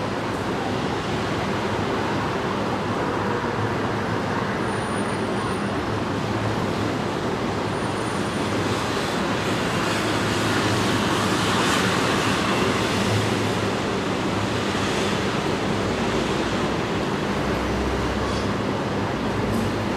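Dense city street traffic: a steady wash of engine and tyre noise with a low engine hum underneath, swelling slightly about halfway through.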